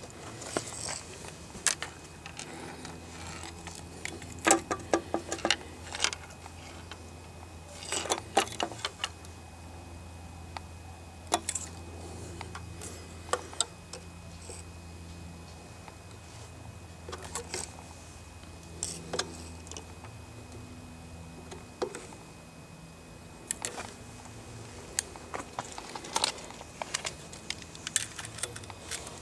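Clicks and light rattles of a tape measure being handled and moved against the parts inside an open power amplifier, with quick runs of clicks about four and eight seconds in. A faint low hum runs underneath for much of it.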